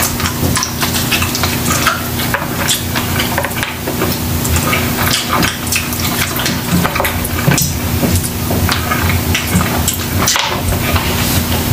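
Close-miked eating: a man biting and chewing meat held in his hand, with a dense run of wet smacking and small clicks.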